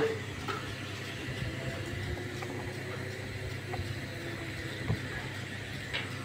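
A motor vehicle engine running steadily in the background, under a low even hum of traffic noise, with a couple of faint clicks.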